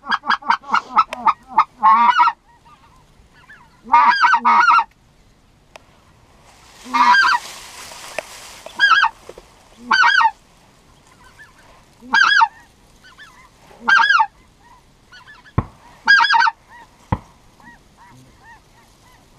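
Goose honking: a fast run of short, high honks over the first two seconds, then single and paired honks about every two seconds. Two sharp clicks come near the end.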